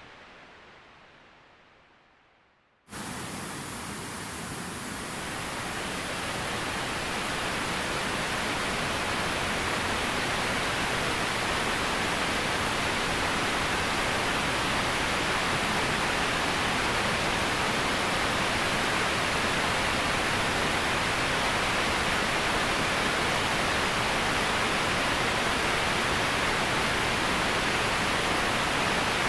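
Steady rush of falling water from a waterfall. A fading sound dies away over the first few seconds, then the water noise cuts in abruptly about three seconds in, swells slightly and holds steady.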